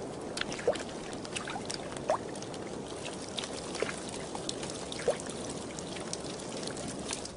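Meltwater trickling and dripping on thawing ice, with scattered small clicks and a few brief rising plinks of drops.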